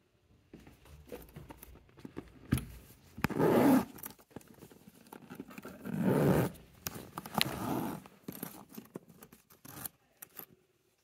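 The zip along the top of a Louis Vuitton Ellipse MM monogram handbag being pulled, in strong runs about three seconds in and again about six seconds in, with a weaker one after, amid small clicks and rustles from handling the bag.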